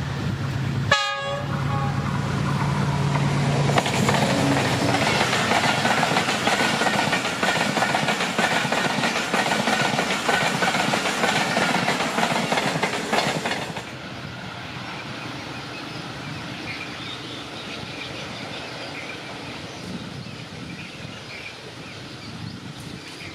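Diesel-hauled passenger express behind a GEU-20 diesel-electric locomotive running through at about 82 km/h. The locomotive's engine drone comes first, then a loud rush of coaches and wheels clattering over the rails for about ten seconds, which drops abruptly to a quieter rumble of the train going away.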